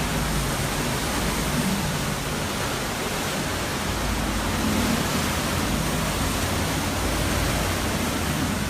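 Hurricane Irma's wind, a steady loud rushing with low gusts surging and easing as they buffet the microphone.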